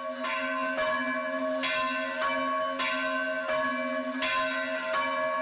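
Temple bells struck over and over, about once or twice a second, each strike adding to a steady ringing tone that carries on between strikes.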